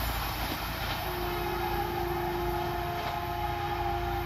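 Train horn sounding one long steady blast, starting about a second in, over the continuous rumble and hiss of a train running at speed.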